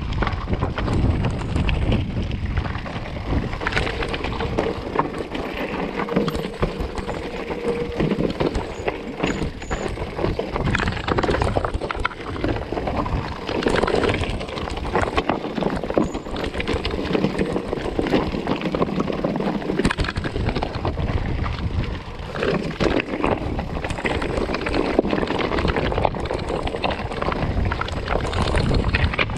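Mountain bike rattling down a rocky track: tyres crunching over loose stones, with a continuous clatter of frame, chain and suspension knocks, and wind rumbling on the handlebar-mounted camera microphone.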